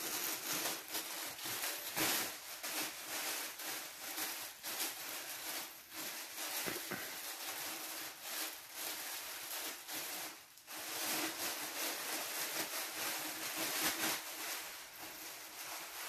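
Thin plastic disposable isolation gown crinkling and rustling as it is unfolded, shaken out and pulled on over the arms, with a brief lull about ten seconds in.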